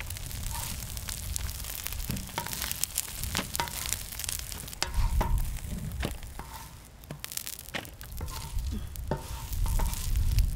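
Egg-battered jeon sizzling and crackling in oil on a large cast-iron pot-lid griddle, with a wooden spatula scraping and tapping on the pan as pieces are lifted off. A low rumble runs underneath.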